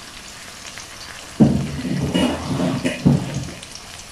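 Chilli paste sizzling quietly in an aluminium wok. From about a second and a half in to about three and a half seconds, a much louder low pitched sound rises over it, breaking off briefly once near the three-second mark.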